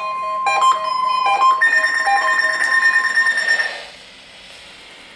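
Electronic alert tones from a NOAA Weather Radio weekly test: steady beeping tones at several pitches, with a higher tone taking over about one and a half seconds in. They cut off a little before four seconds in, leaving faint radio hiss.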